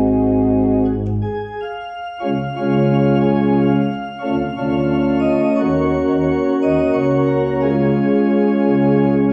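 Organ playing slow, sustained chords over a deep held bass, as in a prelude; the chord and bass release about one and a half seconds in and a new phrase begins about a second later.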